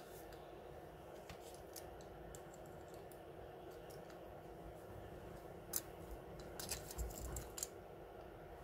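Light clicks and taps of a Samsung A50 smartphone's internal parts being handled and worked with a precision screwdriver. There is one sharper click a little past halfway, then a quick run of clicks, over a steady low background hum.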